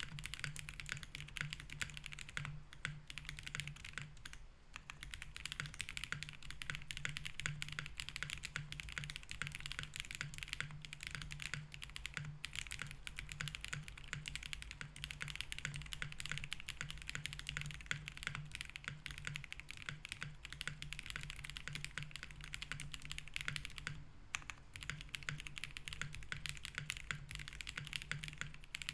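Fast, continuous typing on a Link65 mechanical keyboard with BSUN Roselle switches, FR4 plate, case foam and Owlstabs V2 stabilizers. The keystrokes run in a dense stream with a few short pauses, over a faint steady low hum.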